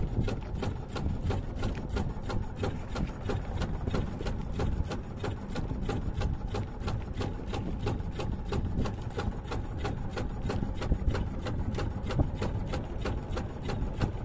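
Small boat engine idling, a rapid, even knocking that runs on without a break.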